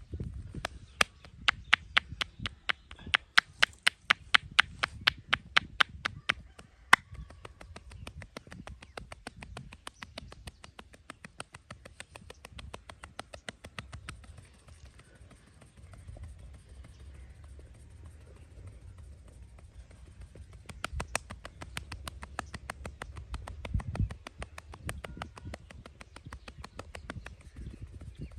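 Hands striking the body in fast percussive massage strokes: trains of sharp claps, several a second, loudest in the first seven seconds and again about twenty-one seconds in, softer in between, over low soft rubbing.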